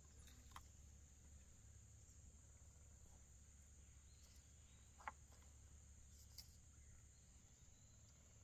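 Near silence: faint outdoor ambience with a steady high thin hiss and three faint ticks, the loudest about five seconds in.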